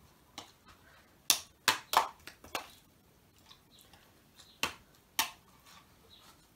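A metal spoon stirring thick slime in a plastic bowl: a run of sharp clicks and knocks in the first few seconds, then two more about half a second apart near the five-second mark.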